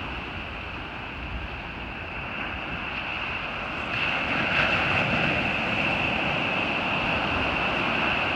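Surf washing onto a beach, swelling as a wave breaks about four seconds in, over a steady high-pitched tone.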